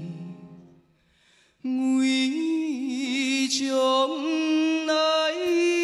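A male singer's voice in a Taiwanese-language ballad: the band fades out, there is a moment of near silence, then he sings a phrase alone, without accompaniment, ending on a long held note with vibrato.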